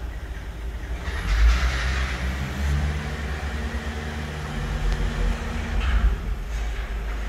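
Idling truck diesel engine heard from inside the cab, a steady low rumble. A car drives out across the loading dock, with a louder wash of noise from about a second in to about three seconds in.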